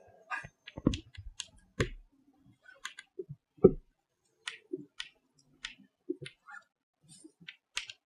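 Chalk tapping and scraping on a blackboard as words are written: a string of short, irregular clicks.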